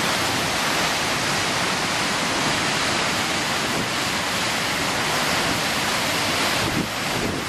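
Steady rushing roar of Tahquamenon Falls, water pouring continuously over the falls.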